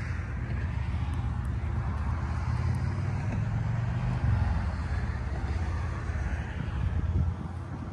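Yamaha MT-10 SP's 998 cc crossplane inline-four engine running fairly steadily, with a brief louder moment about four seconds in.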